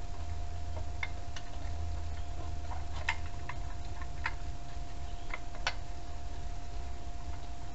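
Light clicks and ticks at irregular intervals from tools and fasteners at a small four-stroke engine's mounting plate, as the mounting bolts are worked loose by hand. A faint steady whine and a low hum run underneath.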